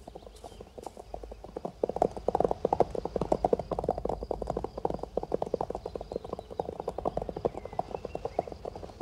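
Hoofbeats of several horses moving together, a dense run of overlapping clip-clops that gets louder about two seconds in.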